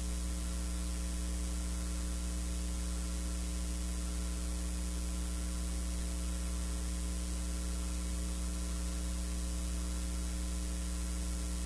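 Steady electrical mains hum with several fixed higher tones over a faint hiss, unchanging throughout, with no game or crowd sound.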